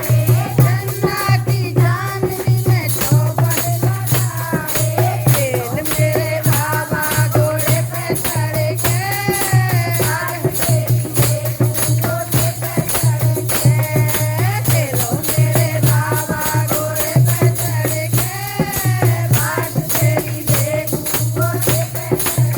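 Hindi devotional song (bhajan) playing: a sung melody over fast, even percussion with a shaker-like jingle and a pulsing bass beat.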